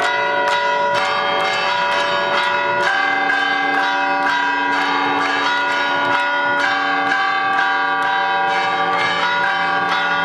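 Bells ringing in a quick, continuous peal: two or three strikes a second, each leaving long ringing tones that overlap.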